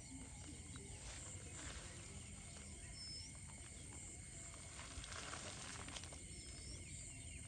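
Faint rustling and soft clicks of a wet nylon cast net being handled and shaken out, with a few short, high rising chirps in the background.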